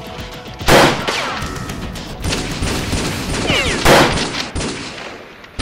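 Background music cuts off, then gunfire sound effects stand in for Nerf blaster shots: a loud blast about a second in, rapid noisy shooting, a few sliding whines, and a second loud blast about four seconds in.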